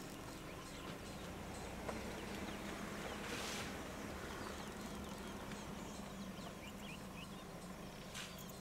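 Faint outdoor bush ambience: scattered small bird chirps over a low steady hum, with a brief rustling swell about three and a half seconds in.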